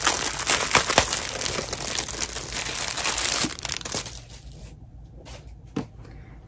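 Crinkly wrapping rustling and crumpling as a ribbon-tied bundle of fabric is unwrapped by hand. It dies down after about four seconds, leaving a few light taps.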